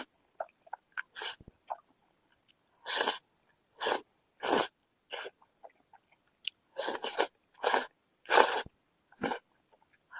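Close-miked eating sounds of a person eating noodles: about ten short, noisy slurps and chews with brief silences between them.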